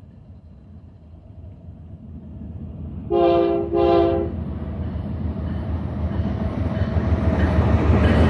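Horn of an approaching BNSF ES44DC diesel locomotive sounding two short blasts about three seconds in. Underneath, the rumble of the engines and wheels grows steadily louder.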